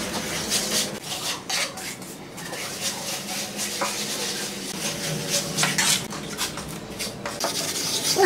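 Steel plastering trowel scraping and smoothing wet cement mortar on a concrete surface, in short irregular strokes with occasional light clicks of metal.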